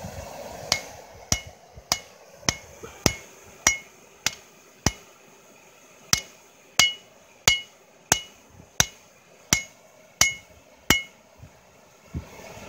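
Hand hammer striking red-hot steel held in tongs on an anvil, drawing the steel out: a steady run of about sixteen blows, roughly one every two-thirds of a second with a short pause midway, many of them with a brief ring. The blows stop about a second before the end.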